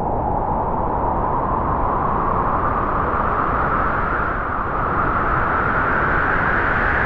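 Wind blowing in a long, strong gust: a steady rushing noise whose pitch slowly rises as it builds.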